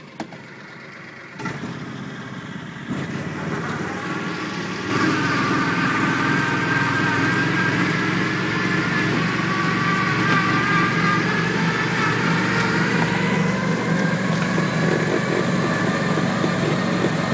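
Argo six-wheeled amphibious all-terrain vehicle's engine driving along a leaf-covered woodland lane. It grows louder in steps over the first five seconds, then runs steadily with a high whine over its hum.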